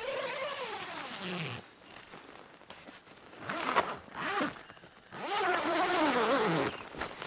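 Tent door zipper pulled open in three long strokes, its rasp sliding up and down in pitch with the speed of the pull.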